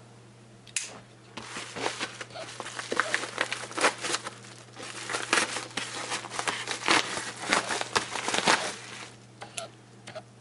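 Yellow padded paper mailer being torn open by hand: crinkling paper and ripping in a dense run of irregular crackles, starting about a second and a half in and thinning out near the end.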